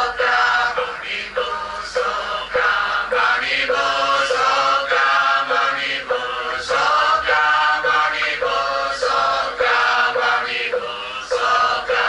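Buddhist chanting by a group of voices, sung to a steady beat of a little under two strokes a second.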